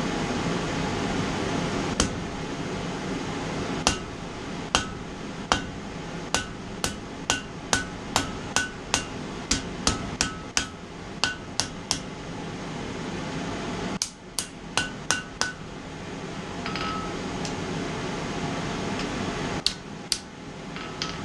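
Hand hammer striking hot mild steel on an anvil, each blow leaving a short ringing note. A few spaced strikes open a steady run of about two blows a second, followed by a short burst and two last blows near the end.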